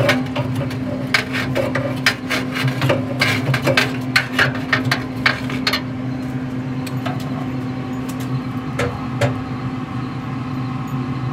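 A metal tool scraping and knocking in a pellet grill's fire pot, breaking up clumped, goopy ash left by bad pellets. It makes a fast run of sharp scrapes and clicks that thins out after about six seconds, over the steady low hum of the running grill.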